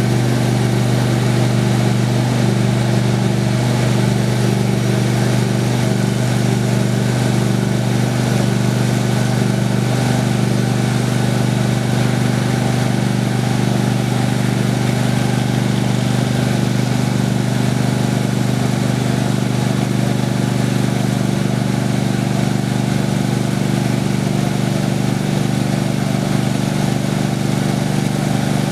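Homemade sawmill running steadily, its engine droning at an even pitch as it mills cherry wood.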